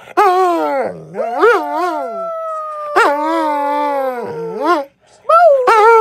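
Dog howling: a run of long howls that slide down in pitch and warble up and down, with a second drawn-out falling howl overlapping from about a second and a half in to nearly five seconds, and a short break just before five seconds.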